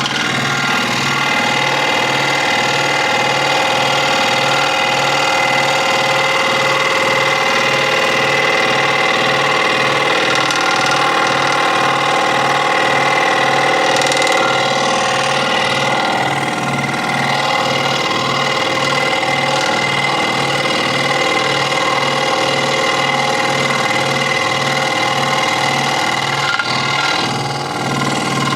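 Electric scroll saw running steadily, its motor and reciprocating blade making a continuous hum with an even low pulsing.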